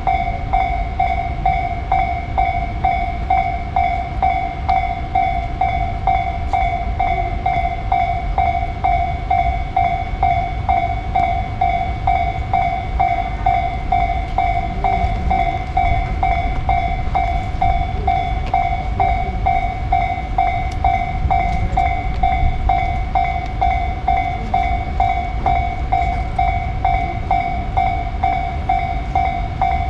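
Japanese railway level crossing alarm ringing its steady repeated 'kan-kan' tone at about two strikes a second, over a low rumble.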